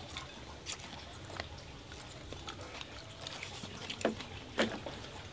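People eating with chopsticks: scattered light clicks of chopsticks on porcelain bowls and chewing, with two louder slurps about four seconds in as soup is sipped from a bowl.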